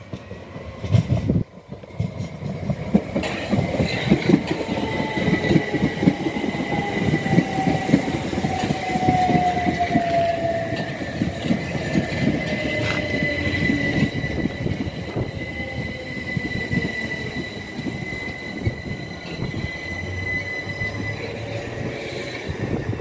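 Southern Class 377 Electrostar electric train running in along the platform: wheels rumbling and knocking over the rails, with a steady high tone and a motor whine that falls in pitch partway through. A short low bump is heard about a second in.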